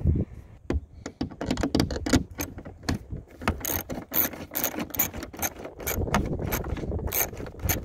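Small ratchet driver clicking in quick, irregular runs as it loosens the bolts holding a MaxxAir vent cover to its mounting bracket.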